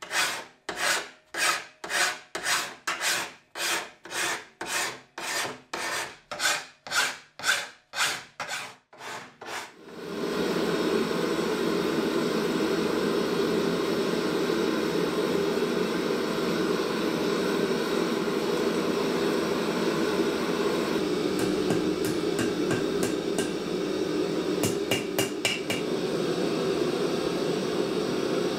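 A hand file drawn over a clamped steel blade in even strokes, about two a second, for roughly ten seconds. Then a gas forge burner running steadily, with hammer blows on hot steel at the anvil ringing out over it near the end.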